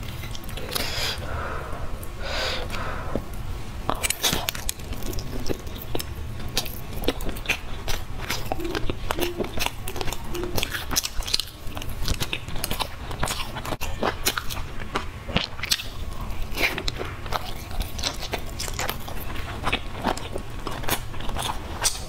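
Close-miked eating: a person biting into and chewing pan-fried salted-egg-yolk pork zongzi (sticky-rice dumplings with a crisp crust), a continuous run of many short crisp clicks and crunches, over a low steady hum.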